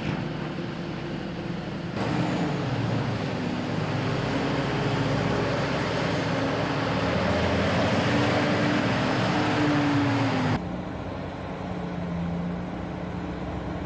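Heavy machine engine running steadily, a dense mechanical din with a low hum. The sound changes abruptly about two seconds in and again near the three-quarter mark, where it drops to a quieter running hum.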